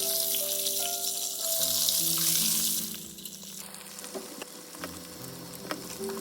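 Food frying in a hot pan, a loud sizzle that dies down about three seconds in to faint crackles and ticks, over background music with held notes.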